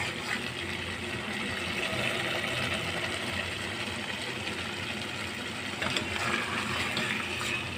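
Chicken-and-spinach curry frying and sizzling in a pot as a ladle stirs it, at the bhunai stage where the oil is coming up to the surface. A steady low hum runs underneath.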